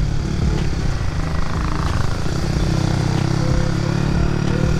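Honda Winner X motorcycle's 150 cc single-cylinder four-stroke engine running steadily under way, with wind rush on the bike-mounted camera.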